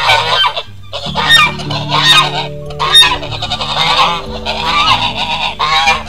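Voices played back fast-forwarded, turned into squeaky, high-pitched chatter that comes in uneven spurts, over background music with held notes.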